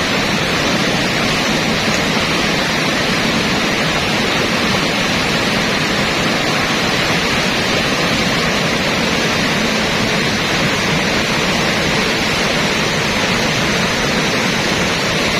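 River rapids: a steady, unbroken rush of white water.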